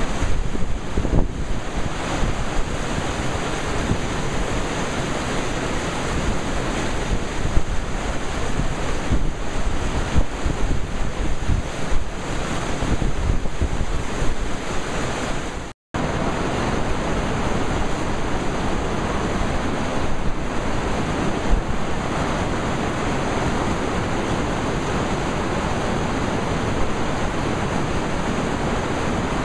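Whitewater rapids of the James River rushing steadily, with wind buffeting the microphone at times. The sound drops out for an instant about halfway through, then the rushing water resumes.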